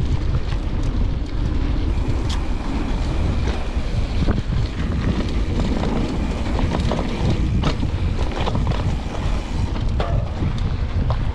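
Wind rushing over the microphone and the rumble of a Specialized Stumpjumper Evo mountain bike's knobby tyres rolling fast over a dirt trail, with scattered sharp clicks and rattles from the bike.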